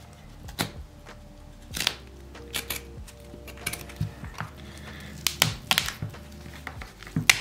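Pliers pulling and tearing the stitched leather welt and sole layers apart on a cut-in-half moc toe boot: a string of irregular sharp snaps and clicks as the thread and layers give way. Faint background music with held notes runs underneath.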